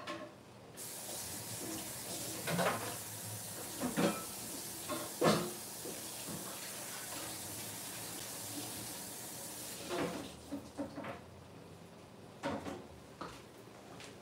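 Water running from a kitchen tap for about nine seconds, cut off abruptly, with a few scattered knocks and clatter.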